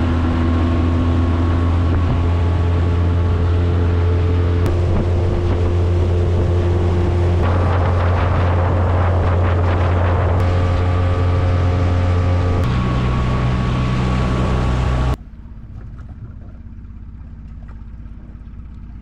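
Outboard motor on a small aluminum boat running steadily under way. Wind and water wash swell for a few seconds midway. The engine note changes about two-thirds through, and the loud running cuts off suddenly a few seconds before the end, leaving a much quieter low hum.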